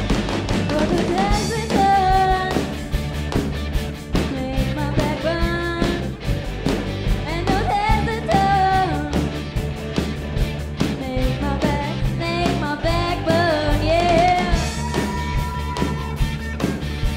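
Live rock band playing: electric guitars, bass and a drum kit, with a lead melody on top.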